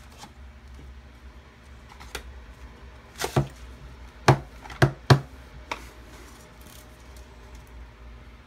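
A handful of sharp knocks and clicks as a giant plastic surprise egg is handled and pried at; the egg is tough to open. Most of them come in a cluster around the middle.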